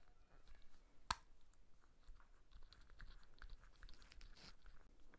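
Faint plastic clicking and rubbing as a chest-mount harness's clip is handled and pushed together, with one sharp click about a second in.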